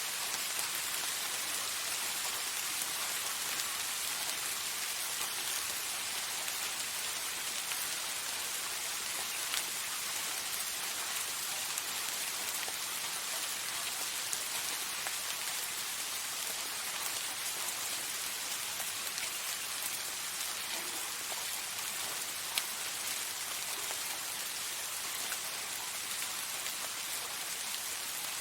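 Steady soft rain falling, an even hiss with a few individual drops ticking now and then.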